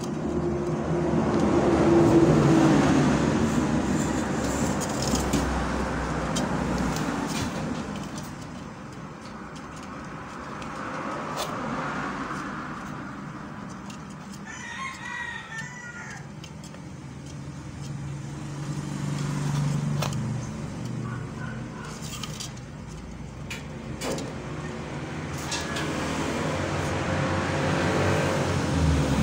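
Background hum of road traffic, rising and fading as vehicles pass, with a rooster crowing once about halfway through.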